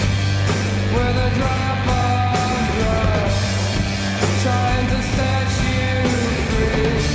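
Rock music: a sung melody over guitar, bass and drums.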